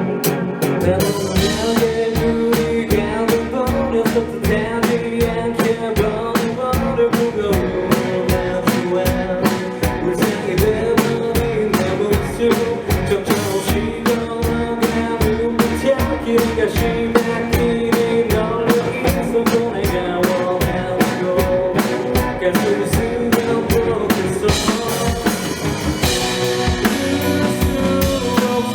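Live rock band playing a song: a steady, busy drum kit beat under sustained guitar and bass.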